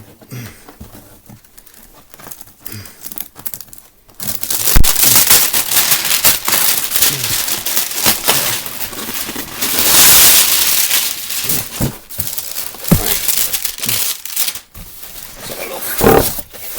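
Packaging being crinkled and torn open by hand: a few faint clicks at first, then loud, continuous crinkling and rustling from about four seconds in, with sharp cracks mixed in.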